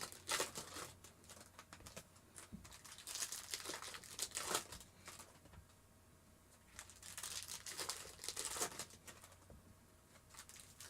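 Foil trading-card pack wrappers crinkling and tearing as card packs are opened and handled, in irregular bursts with short quieter pauses.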